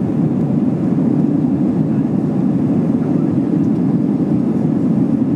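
Steady cabin roar of an Airbus A320-232 climbing after takeoff: its IAE V2500 engines and the rush of air along the fuselage, heard inside the cabin as a loud, low, even rumble.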